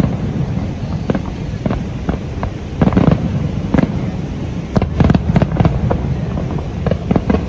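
Aerial firework shells bursting in quick succession: sharp bangs and crackles over a steady low rumble, with the densest clusters of bangs about three and five seconds in.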